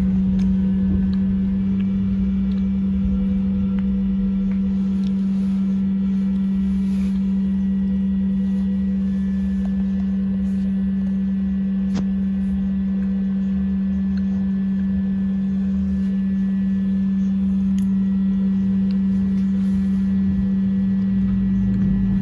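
Cabin sound of a Sinara-6254 trolleybus: a strong, steady low hum that holds one pitch, over an uneven low road rumble, with a few faint clicks.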